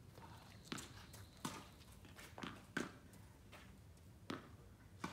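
Tennis ball being rallied with racquets on a hard court: about six short, sharp hits of ball on racquet strings and on the court surface, irregularly spaced.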